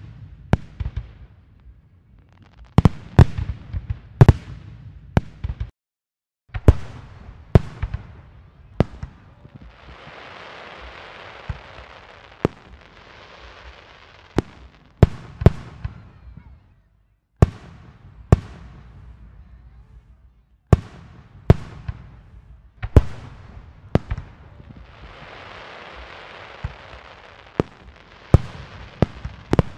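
Fireworks display: aerial shells bursting in a long run of sharp bangs, several in quick succession at times, with two longer stretches of steadier noise between the bangs. The sound drops out completely for a moment twice.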